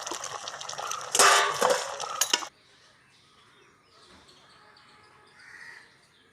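Metal utensil clattering and scraping in a cooking pot, loudest just after a second in, cutting off suddenly about two and a half seconds in.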